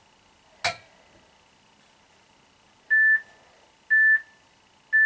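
A sharp click, then three short, identical beeps one second apart from a workout interval timer, counting down the last seconds of the exercise interval.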